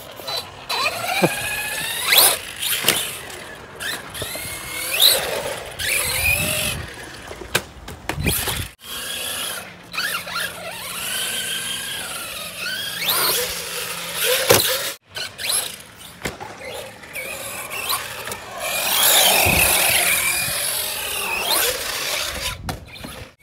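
Electric RC cars' motors whining up and down in pitch with the throttle, mixed with tyre squeal on concrete and a few sharp knocks.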